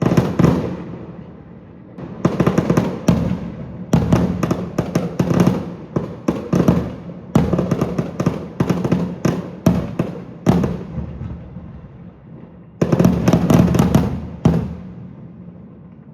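Aerial fireworks shells bursting in rapid volleys, each bang trailing off in an echo. The barrage eases off for about a second and a half, then picks up again in a second dense cluster, with a single last bang near the end.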